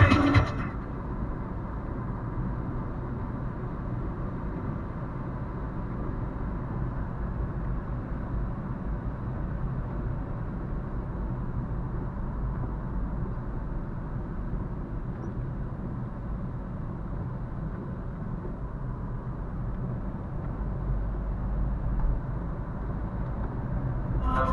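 Renault Fluence driving, heard from inside the cabin: a steady rumble of tyre and engine noise with no music playing.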